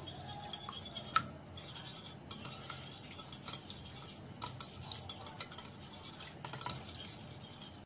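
Two raw eggs being beaten with a metal wire whisk in a bowl: a quiet, steady run of irregular light clicks as the wires tap against the bowl.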